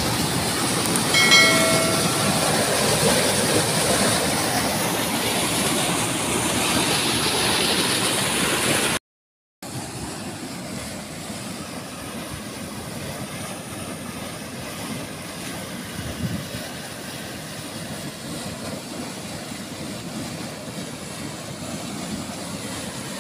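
Water rushing through a concrete irrigation canal, a very strong, turbulent flow of white water heard as a steady rush. A short chime sounds about a second in. The sound cuts out briefly about nine seconds in and comes back quieter.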